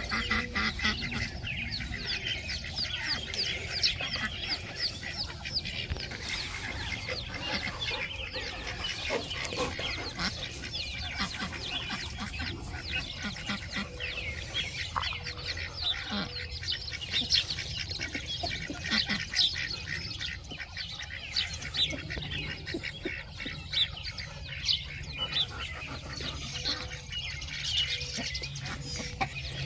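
Chicks peeping rapidly and almost without pause, high-pitched, with occasional calls from the ducks.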